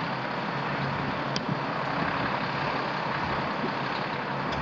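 Fire truck's engine running as the truck pulls slowly around a bend, over a steady hiss of traffic noise, with one short click about a second and a half in.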